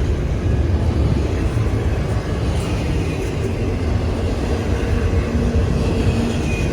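Train rolling past, a steady low rumble with faint steady tones in it.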